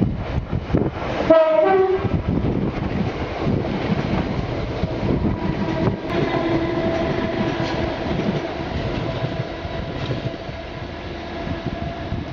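Class 321 electric multiple unit running past on the tracks, with a short horn blast about a second and a half in. A steady whine sets in about halfway through.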